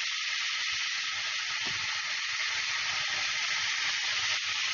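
Bacon strips sizzling in a hot non-stick frying pan, a steady hiss.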